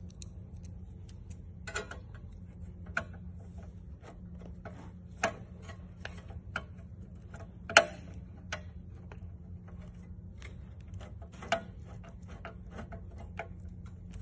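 Irregular clicks and ticks of a hand screwdriver driving small screws into a car head unit's metal mounting bracket, metal tapping on metal, with a handful of louder taps, the loudest near the middle.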